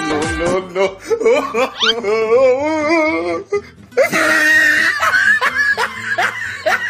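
Comedy music with laughter over it: a wavering, wobbling voice about two seconds in, then a quick run of laughing from about four seconds in.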